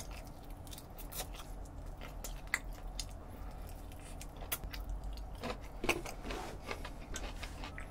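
Close-up eating sounds of a man biting and chewing crispy Goobne Gochu Basasak fried chicken, with scattered soft crunches and mouth clicks throughout.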